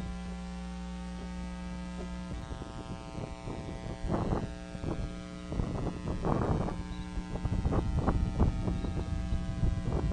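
Steady electrical hum on a nest-cam microphone. From about four seconds in come several bursts of crackling and rustling sticks as bald eagles shift branches and nest material in the nest.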